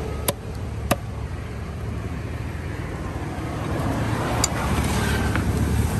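Low, steady rumble of road traffic that swells a little in the second half. Within the first second come two sharp knocks of a large cleaver striking through a rohu fish onto a wooden chopping block.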